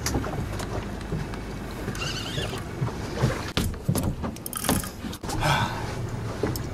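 Boat under way with its motor running, a steady low hum under wind and water noise. Several sharp knocks and splashes come between about three and five seconds in.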